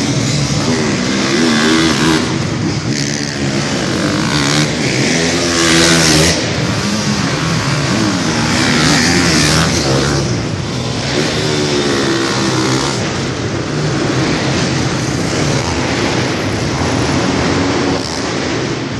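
Motocross dirt bike engines revving up and down as the bikes ride around an indoor arena dirt track, the pitch climbing and dropping again and again. The engines are loudest as bikes pass about six and ten seconds in.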